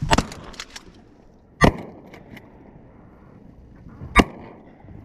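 Shotguns fired from a boat at ducks: a shot right at the start, then two louder, sharp shots about a second and a half and about four seconds in.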